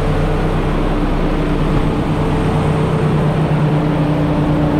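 Semi-truck diesel engine running a parked exhaust-filter (DPF) regeneration: the engine speeds itself up to a raised idle and holds there with a loud, steady hum to burn the soot out of the filter.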